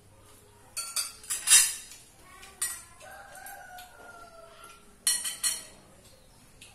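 Metal spoons clinking and scraping against ceramic plates in two short clusters, about a second in and again near five seconds. A rooster crows once in the middle.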